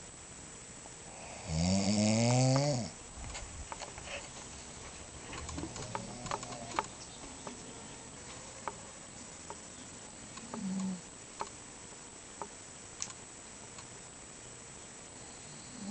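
A sleeping person snoring: one loud snore about two seconds in, its pitch dipping and then rising, followed by quieter breathing with scattered faint clicks and a short, lower snore about eleven seconds in.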